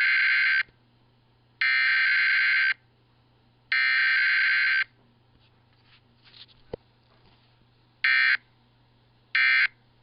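Emergency Alert System weekly test tones: three digital SAME header data bursts, each about a second long and a second apart. After a pause of about three seconds come two short end-of-message bursts near the end.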